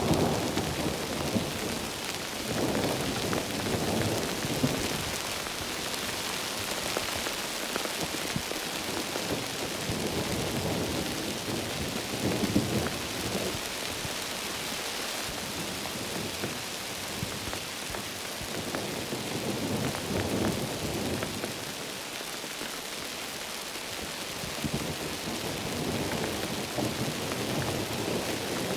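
Heavy rain falling steadily, with rolls of thunder swelling and fading several times.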